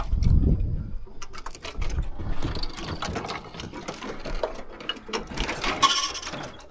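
Fishing reel being cranked, a rough run of quick mechanical clicks from the gears, which sounds pretty terrible.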